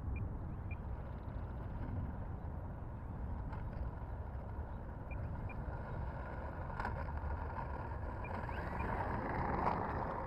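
Wind buffeting the microphone: a steady low rumble that grows louder and hissier near the end, with a few light knocks.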